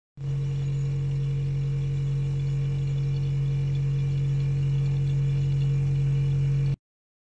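A single steady low drone from the music score, held unchanged for about six and a half seconds with a faint hiss over it, then cut off suddenly near the end.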